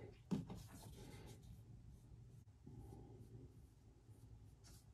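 Faint rubbing of a small dye applicator along the edges of bridle leather, with one light tap about a third of a second in.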